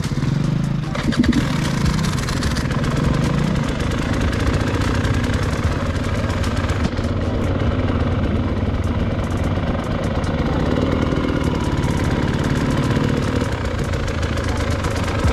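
Enduro dirt bike engines running at low revs. The engine note rises briefly in the first few seconds, then settles to a steady idle.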